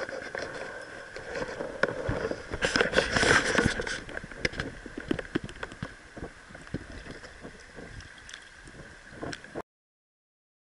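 Shallow stony stream water gurgling close to the microphone, with many irregular clicks and knocks, loudest for a second or two near the middle and fading after. The sound cuts off suddenly about a second before the end.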